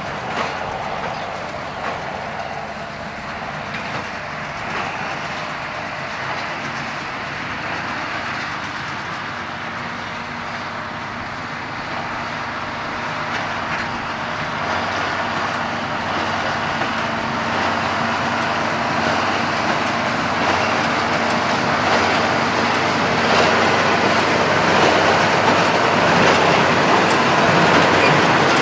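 John Deere 6820 tractor pulling a New Holland BB950A big square baler at work, engine running under load with the baler's mechanical clatter, growing steadily louder over the second half.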